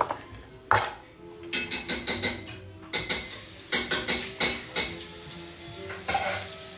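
Metal kitchen utensils and dishes clinking and clattering in quick runs of sharp knocks, loudest a little past the middle, over the faint sizzle of food frying in a pan.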